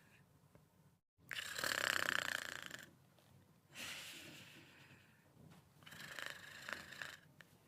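Snoring in sleep: three long, rasping snores about two seconds apart, the first the loudest. A brief dropout of all sound comes just before the first.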